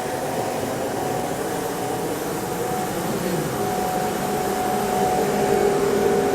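Airbus A220-100's auxiliary power unit (APU) running in the tail: a steady turbine rush with a held whine, growing slightly louder and stronger in its lower tone near the end.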